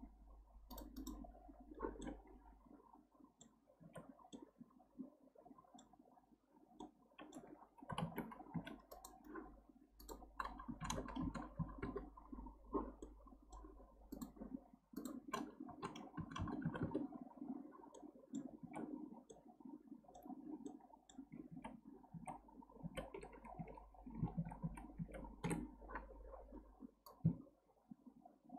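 Faint, irregular clicking of a computer mouse, its buttons pressed again and again while navigating in 3D software, over a low steady background hum.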